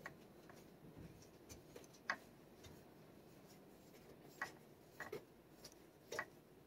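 Near silence broken by a few faint, sharp clicks and light scrapes at irregular intervals, a second or more apart: a metal-handled plastic back scratcher ticking and rubbing as it strokes a cat's neck.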